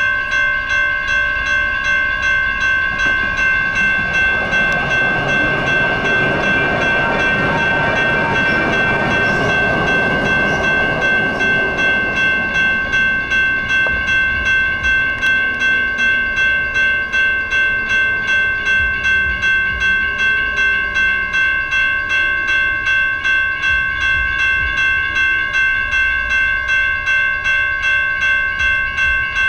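Railroad crossing warning bells ringing steadily, several bells overlapping in a rapid, even stroke while the crossing is activated. A lower rumble swells up about four seconds in and fades away by about twelve seconds.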